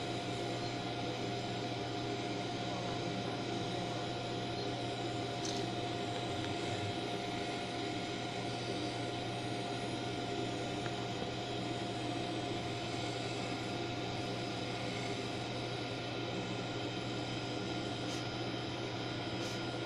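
Steady whirring hiss of running lab machinery, with a constant mid-pitched tone and a low hum underneath and a few faint ticks.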